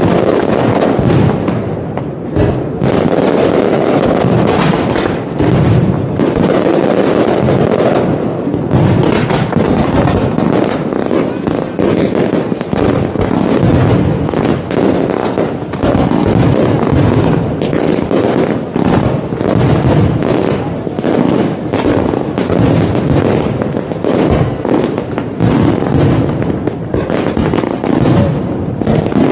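Aerial fireworks display: a dense, continuous barrage of bangs and crackling shells with no pauses.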